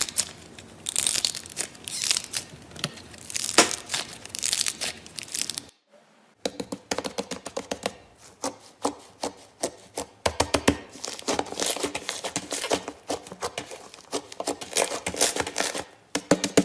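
Slime being squeezed and stretched by hand, making crinkly, crackling noises in waves. After a short break about six seconds in, it turns into long runs of quick clicks.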